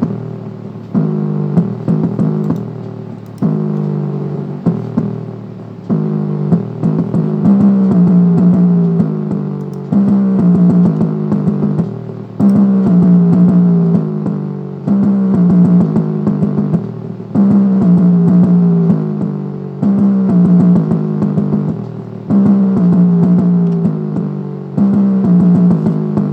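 Music played through the Intex IT-890U Mini 2.1's small 3-inch subwoofer alone, its satellite speakers disconnected. A bass-heavy phrase repeats about every two and a half seconds. The sound sits in the low mids, with almost nothing in the deepest bass.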